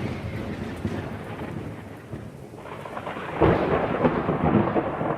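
Thunder sound effect with rain: a rolling rumble dying away from a crack, then swelling again about three seconds in.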